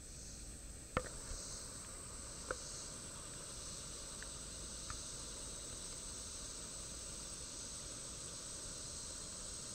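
Steady, high-pitched chorus of summer insects droning over the stream, with two light knocks, about a second in and again a second and a half later.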